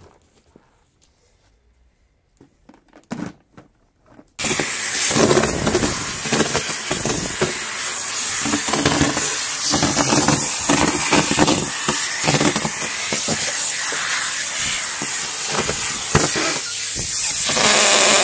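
Numatic Henry 160 vacuum cleaner running at full suction, starting abruptly about four seconds in, with a strong steady hiss of rushing air and the crackle and rattle of dry leaves being drawn up the hose.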